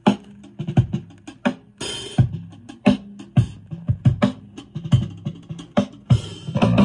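A vinyl LP playing on a Fisher MT-6117 belt-drive turntable fitted with a new stylus: a rock song's drum part, with hits about twice a second and cymbal crashes about two seconds in and again near the end. The rest of the band comes in right at the end.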